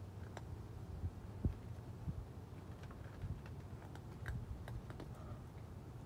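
A cat eating dry kibble from a plastic tray: irregular small crunches and clicks, a few of them sharper, over a faint low rumble.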